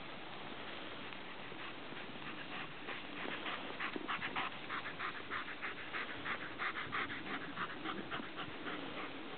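German Shepherd panting hard in quick, regular breaths, about four a second. The panting grows louder a few seconds in as the running dog passes close by, then fades near the end.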